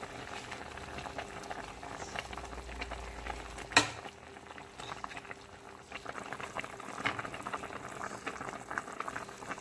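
Pot of sinigang soup boiling on the stove, with a steady patter of small crackling bubble pops. A single sharp knock about four seconds in.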